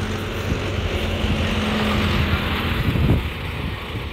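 Bus engine running with a steady low hum, under a growing hiss, and a short louder rush about three seconds in, after which the hum drops away.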